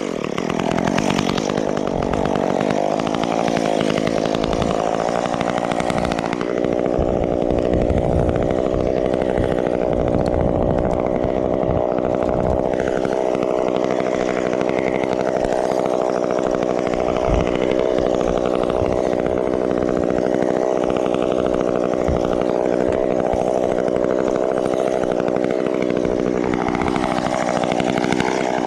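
Chainsaw running at high revs under steady throttle, as if cutting, with the pitch stepping up about six seconds in and dipping briefly near the end.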